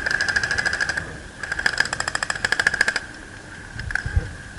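Airsoft electric guns firing on full auto in two bursts, each a rapid clatter of about fifteen shots a second over a steady motor whine. The first burst fills the opening second and the second runs from about one and a half to three seconds in.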